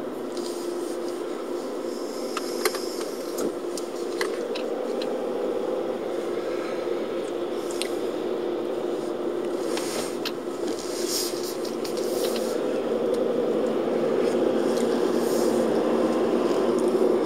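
Car-cabin driving noise picked up by a dashboard-mounted camcorder: a steady engine and road drone that grows louder over the last few seconds as the car gathers speed onto the motorway, with scattered small clicks and scrapes over it.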